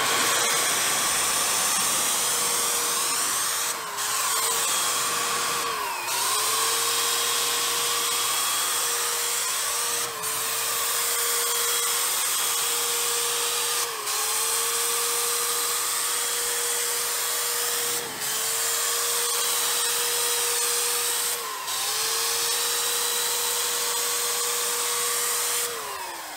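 Handheld Wagner Control Spray electric paint sprayer running and spraying paint: a steady motor whine over a hiss. The pitch sags briefly about six times, each with a faint click, and the motor winds down near the end.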